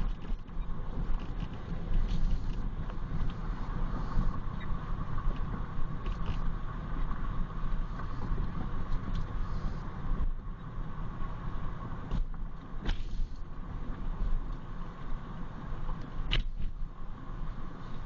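A car driving: a steady engine and road rumble, with a few sharp clicks or knocks in the second half.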